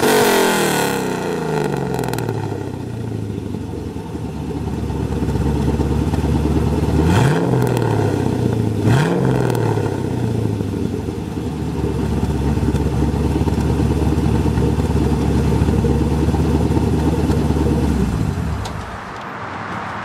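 Exhaust of a Mercedes 380SL with a swapped-in GM LS V8, running through C5/C6 Corvette exhaust manifolds and a straight pipe to a single muffler with no resonator. The engine settles from a rev at the start, gets two quick throttle blips a couple of seconds apart in the middle, then idles steadily until the sound drops away near the end.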